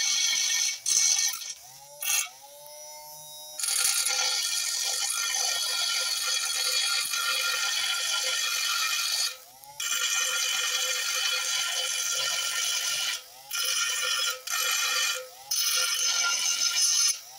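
Small hand-held DC motor with a small grinding disc, grinding weld spatter and beads off a welded steel lathe bed to level it: a harsh, steady grinding sound. It breaks off briefly several times, the longest break about two seconds in, and in each break the motor's whine rises as it speeds up off the metal.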